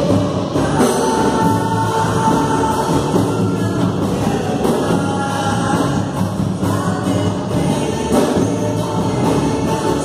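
A live band playing a gospel song, with several voices singing over hand drums, a bass drum and guitar.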